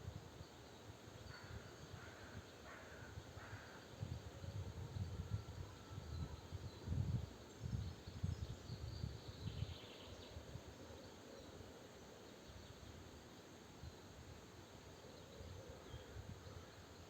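Faint outdoor nature ambience with a few short, faint bird calls, mostly in the first few seconds. In the middle there are louder low rumbling bursts.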